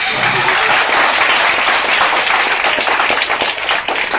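Audience applauding loudly: many people clapping at once in a dense, continuous patter.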